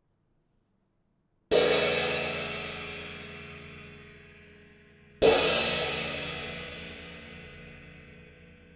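Handmade B20 bronze cymbal struck twice, about a second and a half in and again a few seconds later, each hit ringing out and slowly fading.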